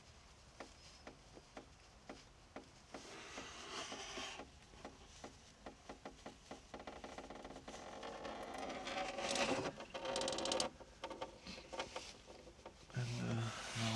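Scattered clicks and knocks of handling under the car, then a thin stream of engine coolant draining from the opened radiator drain plug and splashing into a plastic drain pan, growing louder about halfway through.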